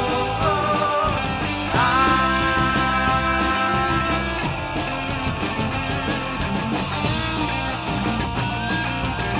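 Punk rock band playing live on electric guitars, electric bass and drums, with long held, bending high notes about two seconds in.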